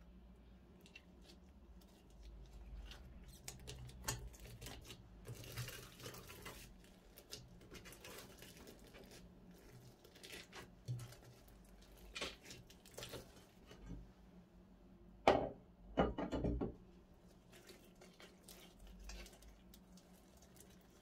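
Slime being worked by hand, with scattered small sticky clicks and crackles. Two louder squelches come about fifteen and sixteen seconds in.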